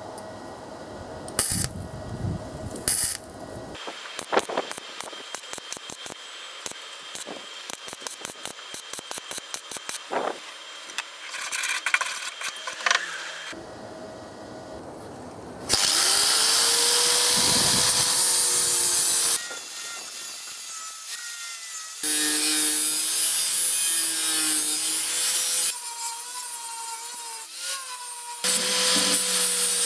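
Semi-automatic MIG welder crackling in short runs of welding on thin 0.8 mm sheet steel, with a few knocks. Then a small power grinder spins up and runs in three loud spells of a few seconds each, the last starting near the end.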